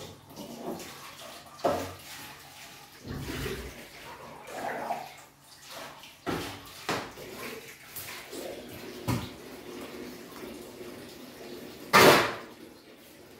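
Tap water running into a sink while dishes are washed by hand, with scattered clinks and knocks of crockery and pans. A louder knock comes near the end.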